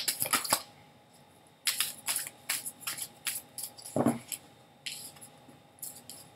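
A deck of oracle cards being shuffled and handled: runs of quick, light card slaps and flicks in three bursts, with a short low sound about four seconds in.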